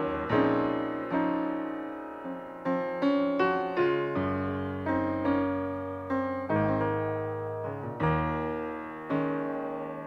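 Instrumental keyboard music: chords and a melody of notes that each strike sharply and then fade, over held low bass notes.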